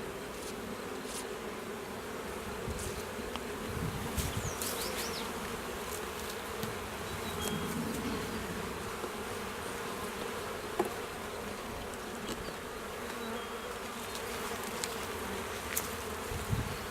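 Honey bees buzzing in a steady hum around the opened hive, with a few faint clicks.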